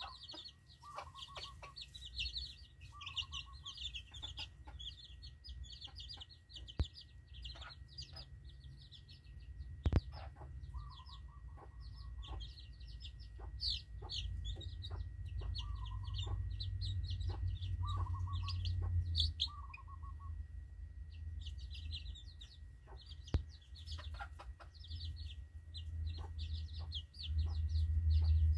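A flock of young chickens peeping almost nonstop in short high chirps, with a hen's short clucks now and then. A low rumble underneath grows louder near the end.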